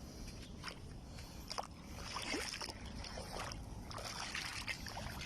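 Shallow seawater lapping and sloshing at the shoreline in irregular small splashes and gurgles, over a steady low rumble.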